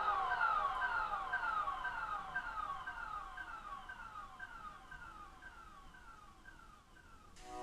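Electronic music played through a loudspeaker: a synth sound that falls in pitch over and over, about three times a second, with an echo-like trail, fading out slowly. Near the end a held keyboard chord comes in.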